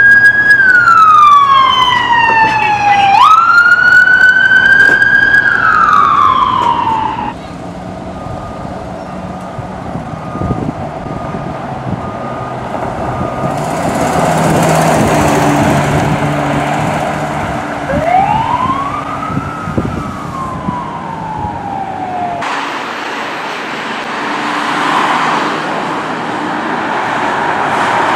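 Emergency vehicle siren wailing loudly, its pitch gliding down, jumping back up and gliding down again before cutting off after about seven seconds. Road traffic and engine noise follow, with one more siren wail rising and then falling about two-thirds of the way through.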